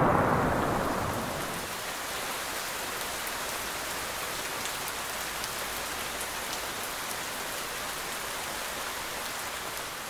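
Heavy rain falling steadily, with scattered single drops ticking close by. It is louder for the first second or so, then evens out.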